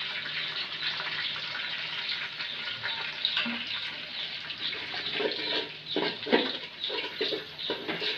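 Whole spices and green chillies sizzling in hot oil in an aluminium pot. From about five seconds in, a steel ladle scrapes against the pot in short strokes as it stirs.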